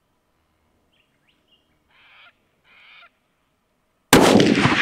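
A bird calls twice with short harsh calls, then a long-range rifle fires once near the end: a sudden loud crack that rolls away in a long echo.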